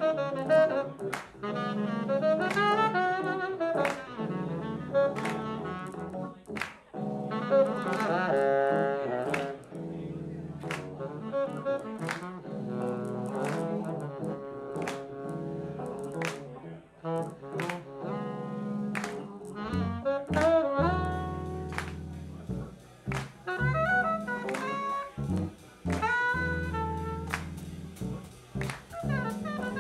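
Live jazz-funk band playing: saxophone, drum kit, bass and keyboard together, with steady drum hits under the melody.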